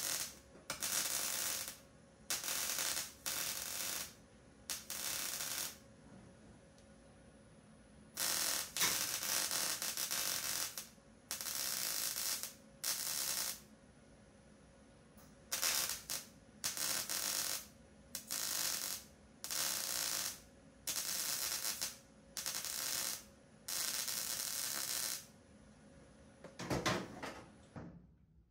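Wire-feed welder stitch-welding a sheet-steel shifter mount into a car's floor pan: a crackling buzz in about fifteen short bursts, with short pauses between them. A few knocks come near the end.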